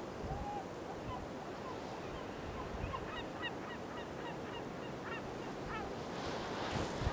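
Gulls calling: a string of short, faint calls, several a second, over a steady outdoor hiss.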